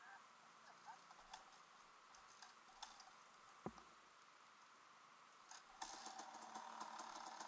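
Near silence with a few faint clicks and one knock midway. About six seconds in, a dirt bike engine starts and runs at idle as a rapid, even train of faint pulses.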